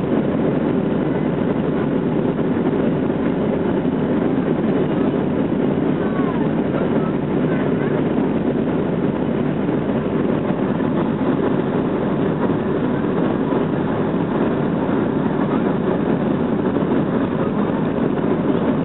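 Boeing 737-300's CFM56-3 jet engines at takeoff thrust, with the rumble of the landing gear on the runway, heard from inside the cabin during the takeoff roll. It is a loud, steady, deep noise that holds at one level throughout.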